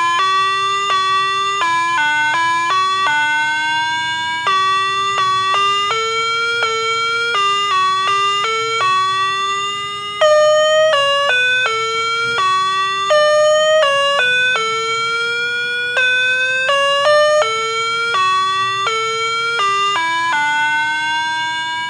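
Spooky bell sound effect: a slow, unbroken melody of held, pitched tones, each note running straight into the next, about every half second to a second and a half. It starts to fade near the end.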